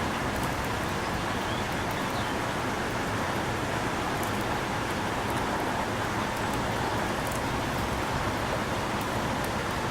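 Steady, even outdoor background noise, a constant rushing hiss with a faint hum, and a few faint high ticks here and there.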